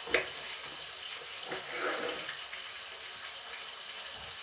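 Kitchen cooking sounds: a sharp knock just after the start, then a steady hiss with a soft swell about two seconds in.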